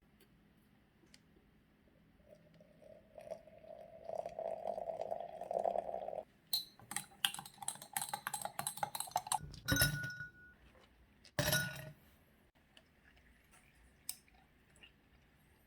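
Dishes and utensils clinking and rattling, with a quick run of clicks and then two heavier knocks that ring briefly.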